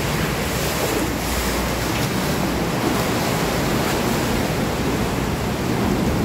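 Khlong Saen Saep canal passenger boat pulling in alongside the pier: a steady rush of churned water and wake slapping the pier, with the low rumble of the boat's engine, growing slightly louder near the end.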